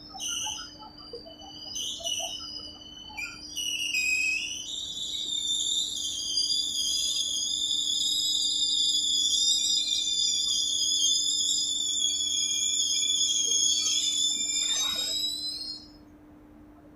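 High-pitched metallic squealing from a train's brakes and wheels. It starts as short wavering squeaks, then becomes a long, slightly rising squeal that cuts off abruptly near the end, as the train comes to a stop. A faint steady hum runs underneath.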